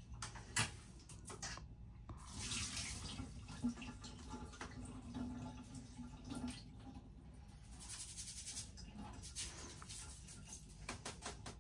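Kitchen tap running into a sink while rice is rinsed in a bowl and drained through a sieve. The water splashes louder in two stretches, with a single click about half a second in.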